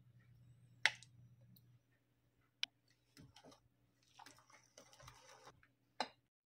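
Wire whisk stirring a thick, creamy coffee-jelly mixture in a bowl: soft squishing strokes, loudest a little after the middle, with three sharp clicks about a second in, in the middle and near the end.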